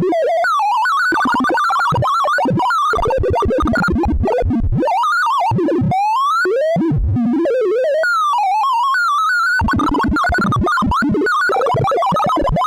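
Sorting-algorithm sonification: a rapid stream of synthesized beeps whose pitch follows the values being compared and swapped, sweeping up and down in quick runs, with a long rising run about halfway through.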